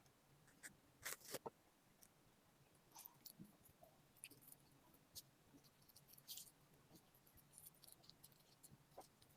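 Faint eating sounds: soft mouth clicks and chewing, with a sharper cluster of two or three clicks about a second in and scattered small ticks after.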